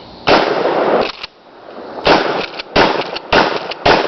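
Gunshots: one shot, then after a pause of more than a second four more fired quickly one after another, each with a short echo trailing off.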